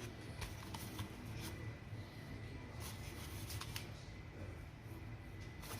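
Soft rustling and a scattered run of light clicks from hands handling things in a kitchen, over a low steady hum.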